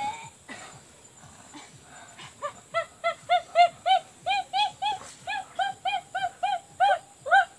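A girl laughing in a quick run of short, high-pitched 'ha' notes, about three to four a second, starting about two seconds in.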